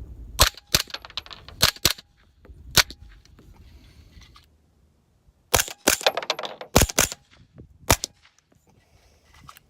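Suppressed 9mm shots from a CMMG Guard carbine fitted with a Rugged Obsidian 9 suppressor in its full-length configuration, firing subsonic reloads. A quick string of shots, a pause of about two and a half seconds, then a second string.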